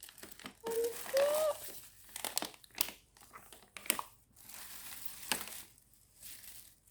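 Packaging being crinkled and rustled as a parcel is unboxed, with sharp crackles and scrunches through the whole stretch. A short vocal sound comes about a second in.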